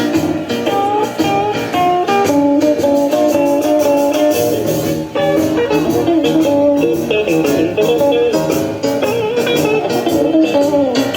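Guitar-led music playing loudly and steadily, in a bluesy style.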